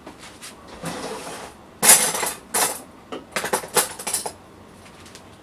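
Kitchen utensils clinking and clattering as they are handled: a couple of sharp clinks about two seconds in, the loudest, then a quicker run of clinks a second or so later.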